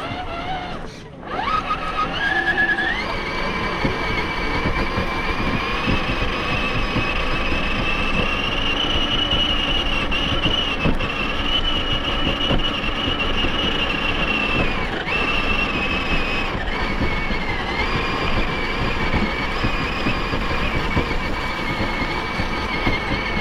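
RC rock crawler's electric motor and gearbox whining under throttle. The pitch climbs about two seconds in and then holds fairly steady, over an uneven rumble. The sound drops off briefly about a second in.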